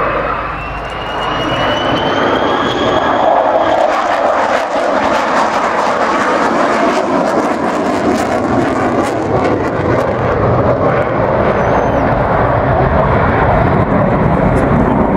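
Loud, steady jet roar of an F-35B Lightning II's Pratt & Whitney F135 engine in slow, gear-down flight with its lift fan engaged. A high whine rises in pitch over the first few seconds.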